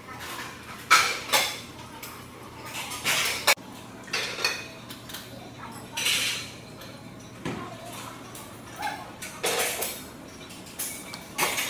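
Gym weights clanking, metal on metal, in a string of irregular sharp clanks and clinks, the loudest about a second in and about three and a half seconds in.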